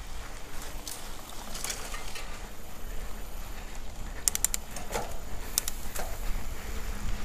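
Mountain bike riding down a dirt forest trail: a steady low rumble from the ride, with scattered rattling clicks from the bike and a quick run of clicks about four seconds in.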